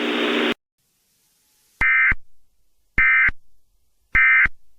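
Emergency Alert System end-of-message signal: three short, identical bursts of warbling SAME data tones, about a second apart, marking the close of the alert. Before them a steady hiss cuts off abruptly about half a second in.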